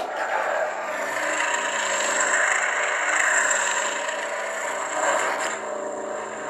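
Lightsaber sound font playing on a Proffie saber board: a steady electronic hum made of several fixed tones, with a longer swell of swing sound that rises and falls through the middle.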